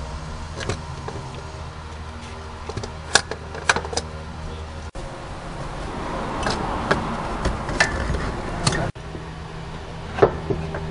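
A wrench and hands working on a car starter motor: scattered sharp metallic clicks and clinks, with some rustling from handling the wiring, over a steady low hum.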